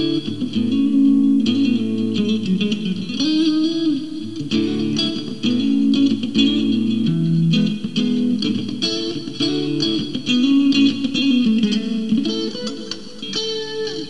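Squier Classic Vibe '50s Stratocaster electric guitar played clean: a run of single notes and double-stops whose pitch bends and wobbles with the tremolo bar. It ends on a chord that rings out near the end.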